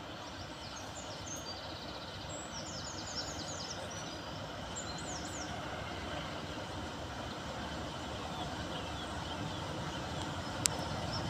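Class 47 diesel locomotive's Sulzer V12 engine approaching from a distance, a low rumble slowly growing louder. Birds chirp in the first few seconds, and there is a sharp click near the end.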